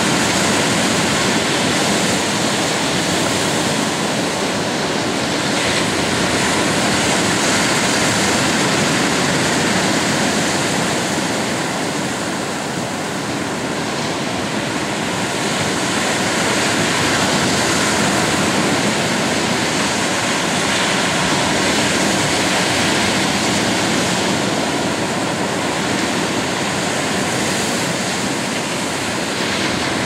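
Pacific Ocean surf breaking and washing up a sandy beach: a steady, loud rush of water that eases slightly about halfway through and again near the end.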